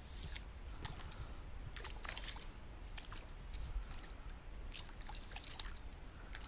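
Faint water splashes and sloshing as a small hooked panfish is played at the surface near a kayak, with scattered light ticks.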